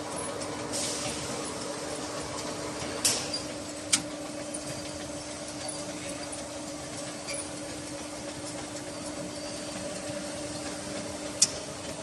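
Bottled-water filling line machinery running with a steady hum, with a short hiss about a second in and sharp clicks three times.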